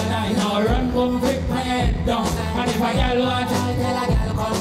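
Live dancehall music at full volume: a male voice singing over a backing track with a deep bass line and a steady drum beat.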